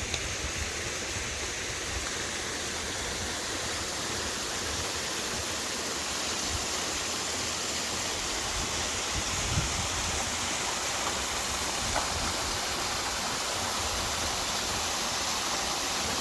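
Steady rushing of flowing water, growing slowly louder.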